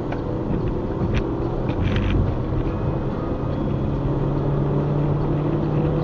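A car's steady engine hum and tyre and road rumble inside the cabin while cruising at motorway speed. A couple of faint clicks sound in the first two seconds.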